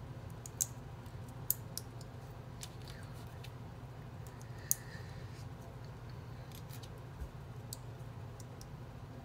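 Small plastic LEGO pieces clicking as they are handled and pressed together: a scattering of sharp clicks, the loudest about half a second, a second and a half, and nearly five seconds in, over a steady low hum.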